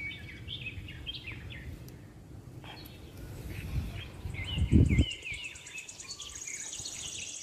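Small birds chirping and twittering over and over, joined in the second half by a fast, high-pitched trill, over a low steady outdoor rumble. A brief low rumble about two-thirds of the way through is the loudest sound.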